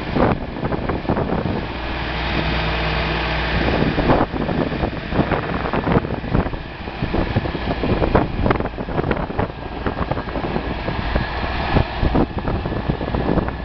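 A 1969 Massey Ferguson 1130's six-cylinder diesel engine running as the tractor drives and turns, its note holding steadier for about two seconds near the start. Wind buffets the microphone throughout.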